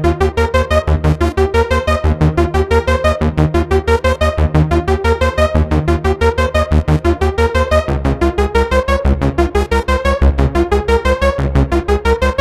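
MES Mini 11 software synthesizer playing a fast arpeggio, short notes in repeated rising runs over a held bass line. The bass moves to a new note about eight seconds in.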